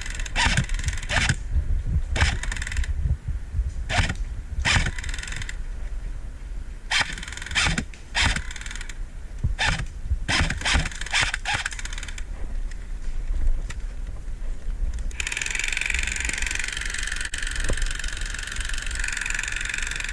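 A&K M249 MK1 airsoft electric light machine gun firing: many short bursts and single shots, then one long sustained burst of about five seconds near the end. Low wind rumble on the microphone underneath.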